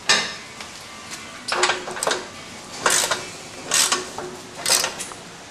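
A hand ratchet wrench is cranked in short strokes on the exhaust hardware. There is a sharp click at the start, then about five bursts of ratcheting clicks roughly a second apart.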